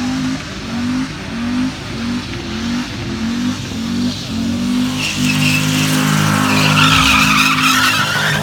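Holden Calais engine revving in short repeated bursts about twice a second. From about five seconds in it is held at high revs, and the rear tyres spin and squeal in a smoky burnout.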